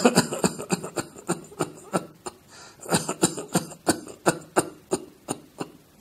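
A man giving a long run of short, weak coughs in quick succession, about four or five a second, with no deep breath first. It is the cough pattern typical of an irritant deep in the lungs, in the interstitium or alveoli, as in pulmonary fibrosis, pulmonary edema or pneumonia.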